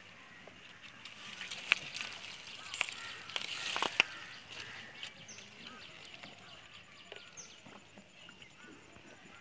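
Hands splashing and sloshing water in the bottom of a wooden boat, with sharp knocks against the wood about two, three and four seconds in, as men grope for small fish. Birds call in the background.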